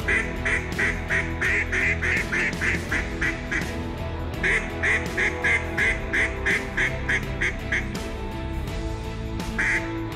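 Duck quacks in long, rapid runs of about four a second, with a short break about four seconds in and two single quacks near the end, over background music.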